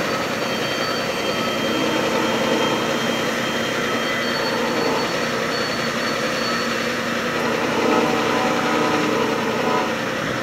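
Diesel engine of a CP Brandt road-rail truck running steadily as it slowly pushes a tie train along the track.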